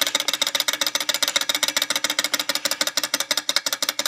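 Stirling model engine running on a rubbing-alcohol burner, its piston going back and forth with a rapid, even ticking clatter that sounds like an old putt-putt.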